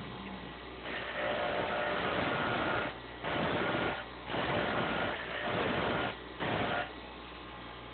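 Steel lock-pick blanks ground on an electric grinder in four passes, the longest about two seconds and the last brief, with the grinder's quiet running hum between them.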